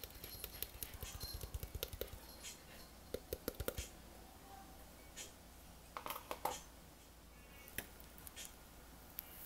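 Soft slime being poked and pressed by fingers, giving faint, scattered small clicks and pops, with a dense run of them in the first few seconds and a short cluster about six seconds in.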